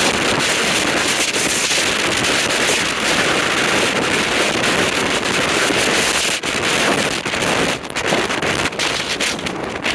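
Strong wind rushing over the microphone, a loud steady noise that dips briefly a couple of times in the second half.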